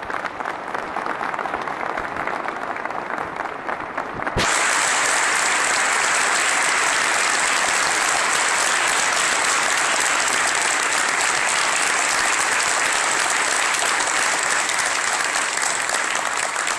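Audience applauding, a dense steady clapping that jumps clearly louder about four seconds in and stays loud.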